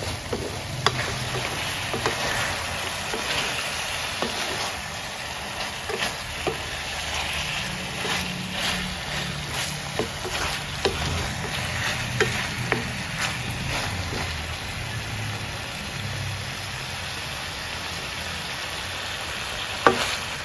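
Chicken pieces sizzling in a thick, reduced sauce in a metal pan while a wooden spatula stirs them, giving a steady frying hiss with frequent short clicks and scrapes of the spatula against the pan, and one louder knock near the end.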